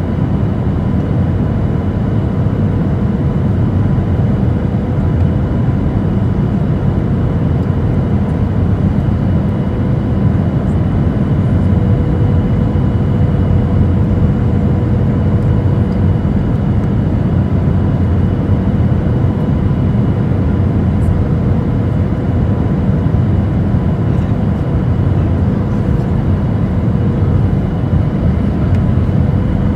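Steady cabin noise of a Boeing 737-700 on final approach, heard from a window seat over the wing: a low, even rumble of its CFM56-7B engines and rushing airflow, with a thin steady tone running through it.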